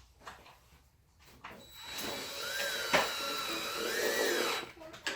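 Electric drill/driver running for about two and a half seconds, starting about two seconds in, as it drives a screw into the desk boards. Its whine wavers in pitch as the load changes, with one sharp click partway through.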